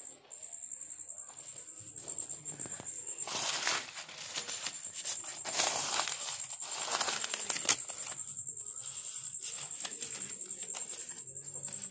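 Paper rupee banknotes rustling and crinkling as a hand rakes through a loose pile of notes, busiest from about three to eight seconds in. A steady high, thin tone runs underneath.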